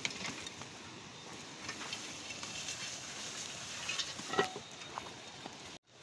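Footsteps on a forest dirt path and leaves brushing and rustling against the walker, with scattered small crackles and a short, louder pitched sound about four seconds in. The sound cuts out for a moment near the end.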